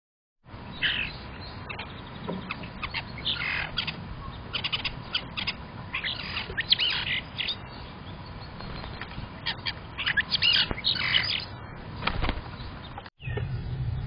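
European starling calling: a busy string of chirps and whistles, some sliding in pitch, coming in bursts. A dull thump comes near the end.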